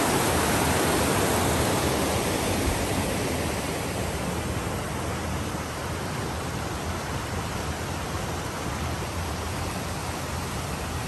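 Shallow stream rushing over rocks: a steady, loud rushing hiss that eases off a little after the first few seconds.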